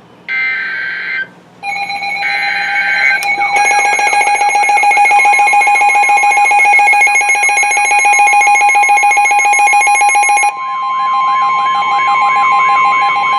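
Emergency alert tones from a weather radio broadcast. Two short buzzing data bursts are followed by several steady alert tones layered with a fast warbling tone. About ten seconds in most of the layers drop out, leaving one long steady tone with the warble under it.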